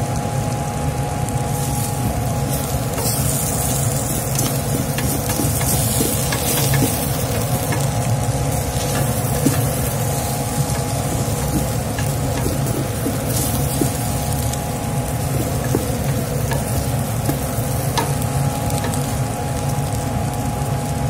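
Noodles sizzling as they are stir-fried in a hot metal pan, the spatula scraping and clicking against the pan as they are tossed. A steady low hum runs underneath.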